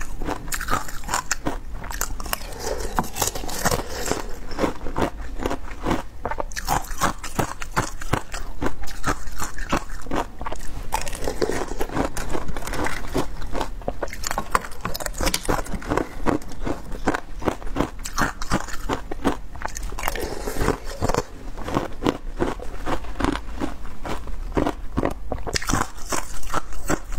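Close-up crunching and chewing of ice, bitten in quick, irregular crunches.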